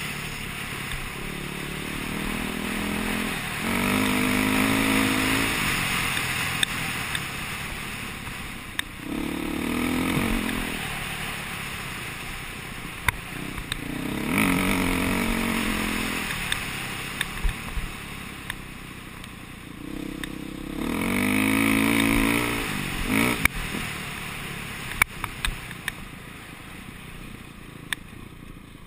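KTM dirt bike engine revving up in about four surges under acceleration, easing off between them, with a few sharp clacks. The engine dies down near the end as the bike slows.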